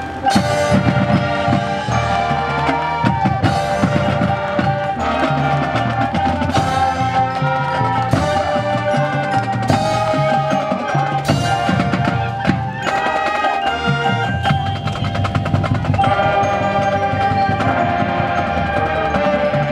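High school marching band playing: held brass chords over drums and front-ensemble mallet percussion, with frequent sharp drum hits.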